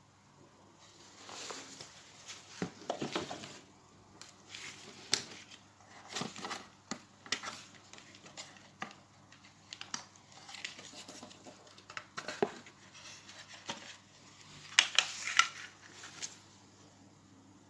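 White plastic housing of a TP-Link CPE220 outdoor access point being handled and its bottom cover worked loose: irregular plastic clicks, taps and scrapes, with a cluster of louder clicks a little before the end.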